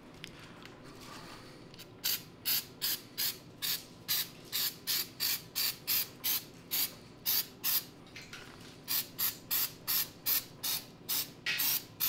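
Carburetor cleaner sprayed onto a dirty, varnished carburetor in quick short squirts, about three a second. The squirts start about two seconds in and pause briefly about two-thirds of the way through.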